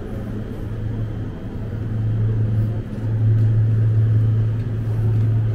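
Steady low hum of an idling motor vehicle engine, growing louder about three seconds in.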